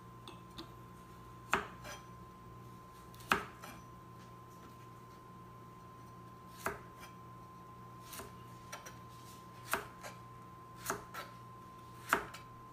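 Kitchen knife slicing a carrot into thin pieces on a plastic cutting board. The blade knocks on the board about eight times at uneven spacing, a second or two apart.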